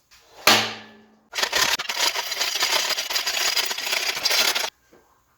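Folding engine crane and its lifting chain being handled: a metal clank that rings briefly, then about three and a half seconds of dense, fast rattling that stops abruptly.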